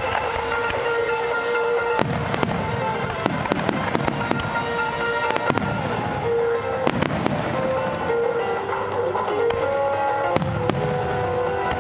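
Fireworks finale: aerial shells and ground mines bursting in quick volleys of sharp bangs and crackle, over music with a held, changing melody.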